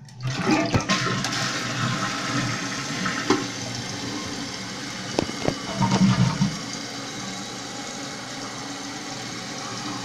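2001 Eljer Savoy toilet flushing with its tank lid off: water rushes out of the tank through the open flapper. The rush starts suddenly and is loudest at first, then settles to a steadier flow, with a few sharp clicks and a brief low gurgle about six seconds in.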